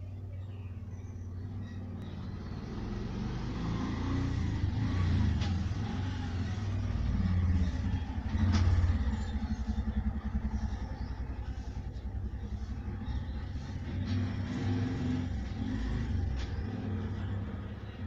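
A motor vehicle's engine running, swelling to its loudest about halfway through and then slowly fading.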